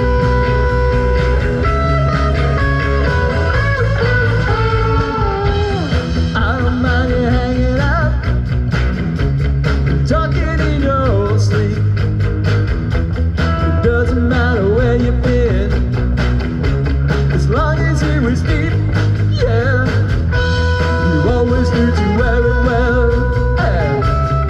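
Live rock band playing an instrumental break through a PA: a lead electric guitar solo with bending notes over bass, drums and rhythm guitar.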